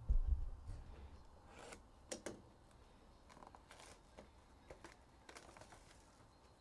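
Plastic wrapping crinkling and tearing in short crackly bursts as a 2023 Upper Deck Goodwin Champions hobby box of trading card packs is opened and a pack pulled out, after a dull low thump at the start.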